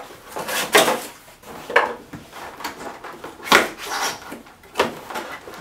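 Cardboard laptop box and its inner cardboard packaging being handled and pulled apart: a series of sharp scrapes and knocks, about four of them standing out.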